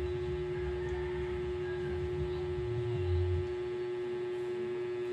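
A steady electrical hum, one constant tone, over a low rumble.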